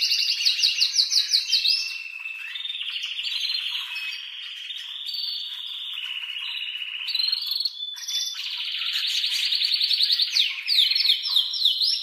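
Male canary singing an excited breeding-season song of rapid trills and rolls, switching from one repeated-note tour to the next every second or two. High, loud trills open the song and return from about eight seconds in, with a softer, lower roll in between; near the end come quick downward-sweeping notes, several a second.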